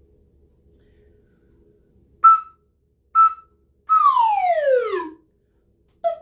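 Slide whistle playing two short, detached notes on the same pitch, then one smooth glide falling steadily over about a second. It mixes two of its sound types, pokey and smooth, in one pattern.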